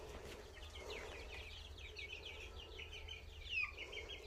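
Young chickens peeping: many short, high cheeps that slide downward, overlapping in a quick, continuous stream.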